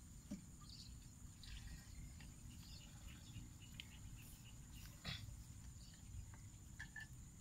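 Faint marsh ambience: insects keep up a steady high drone with scattered chirps, over a low rumble. A few soft rustles and clicks come from a fish trap being handled and set in the reeds, the sharpest about five seconds in.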